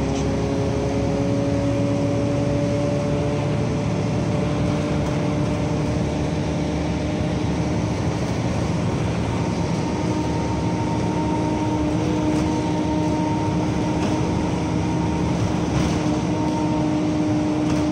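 Steady engine and road noise heard from inside a moving vehicle, with a low hum and a fainter tone above it that slowly rise in pitch.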